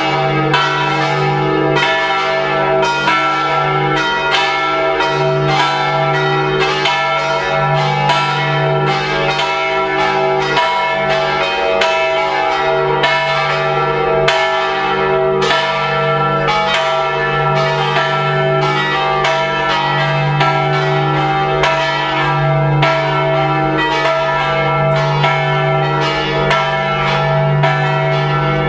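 Full peal of church bells: the tower's bells swing and ring together in rapid, overlapping strikes, about two a second, over a sustained hum. It is the Sunday plenum calling the faithful to evening mass.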